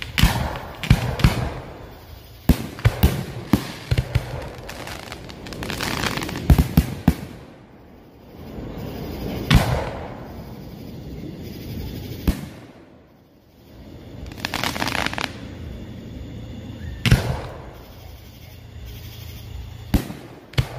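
Fireworks display: a string of sharp bangs from bursting aerial shells, several in quick clusters during the first seven seconds and then spaced a few seconds apart, with stretches of hiss between some of the bangs.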